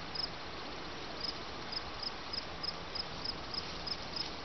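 A cricket chirping in a steady rhythm, about three short, high chirps a second, each a quick trill of a few pulses, over a faint outdoor hush.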